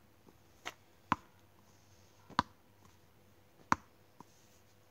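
Small ball being bounced on a hard surface: four sharp smacks, roughly one every second or so.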